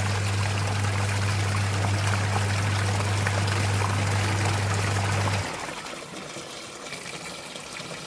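Toshiba semi-automatic washing machine's wash motor humming as it churns the pulsator through water in the tub, over a steady splashing of water. The motor cuts out about five and a half seconds in, the pause of the wash action between turns, leaving only the water sound.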